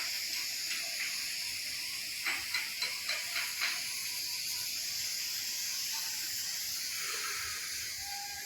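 Steady high-pitched chorus of night insects, with a short run of about six faint taps a few seconds in.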